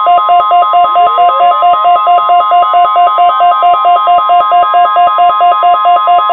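NOAA Weather Radio warning alarm tone: a steady 1050 Hz tone mixed with a loud warbling tone that alternates about four times a second. A faint rising glide sounds about a second in.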